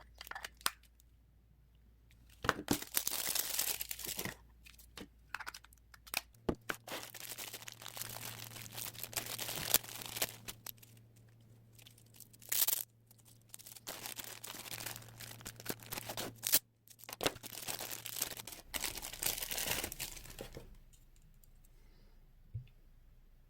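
Packaging being handled: plastic or paper crinkling and tearing in several stretches of a few seconds each, with scattered clicks in between.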